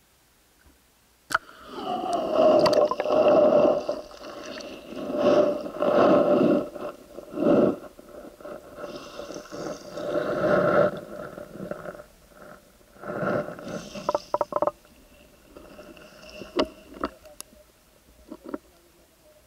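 Muffled water and handling noise picked up by a camera held underwater: a sharp click about a second in, then uneven loud surges of sloshing and scraping with a steady ringing tone. Over the last few seconds it drops to scattered clicks and knocks.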